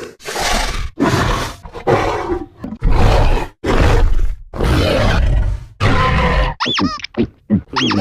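Indominus Rex creature sound effects: a run of about seven short, rough roars and growls, then, near the end, several high-pitched shrieks that rise and fall in pitch.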